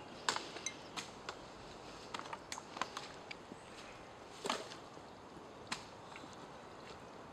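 Scattered light clinks and ticks of a metal bucket and its handle, with footsteps rustling in dry fallen leaves; one longer rustle about four and a half seconds in.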